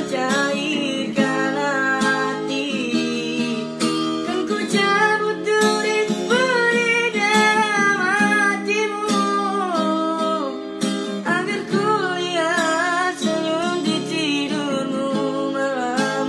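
A young man singing while strumming an acoustic guitar.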